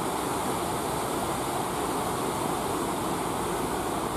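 Steady rush of ocean surf with waves breaking.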